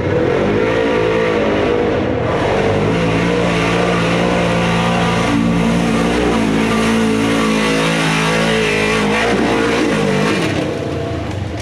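Off-road buggy engine driving on a trail under throttle, its pitch rising and falling as it accelerates and lets off, then easing back about nine seconds in.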